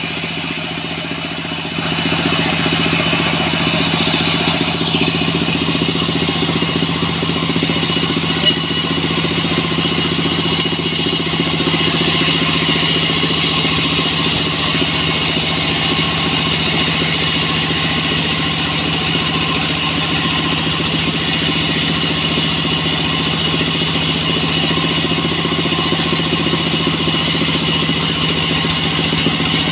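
Engine-driven portable sawmill running steadily as a dried salam log is fed through it and ripped lengthwise. The sound steps up about two seconds in and then holds loud and even.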